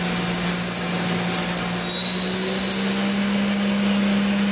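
Haas ST-15Y CNC lathe running: a steady high whine over a low hum from its drive, both stepping up slightly in pitch about two and a half seconds in.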